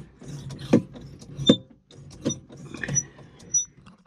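John Deere 5075E tractor seat suspension squeaking as the seat is rocked, about five squeaks under a second apart, some with a thin high whistle. The owner puts the squeak down to the seat's spring or shock, and it is unlubricated.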